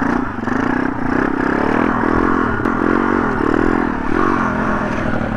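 MRF 140 RC pit bike's 140 cc single-cylinder four-stroke engine running under way, its note rising and dropping several times as the rider works the throttle.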